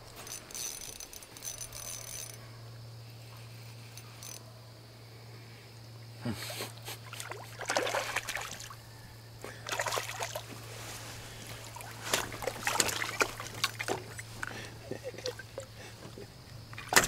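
Water trickling and splashing in several short spells, over a steady low hum.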